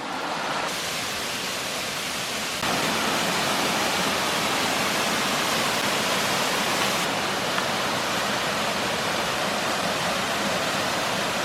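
Waterfall rushing: a steady hiss of falling water that gets louder about two and a half seconds in.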